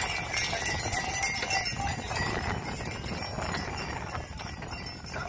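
Horses pulling carts past a crowd, hooves on dry ground, with many voices chattering throughout.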